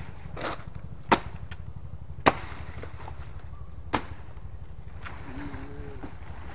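A blade chopping into the stalk of a felled kepok banana plant: three sharp chops a second or so apart, over a steady low rumble.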